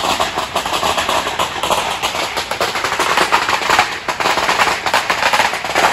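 Dense, rapid crackling, a fast irregular run of sharp pops that stops near the end.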